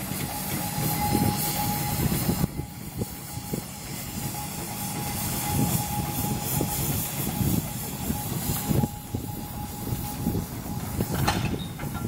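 Cable-hauled steam-ploughing cultivator clattering and rattling as a steel rope drags it over the soil, with a steady high whine running through it. A sharper clank comes about a second before the end.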